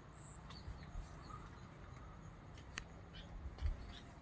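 Faint bird chirps over a low steady rumble, with a sharp click near three seconds in and a dull thump just after.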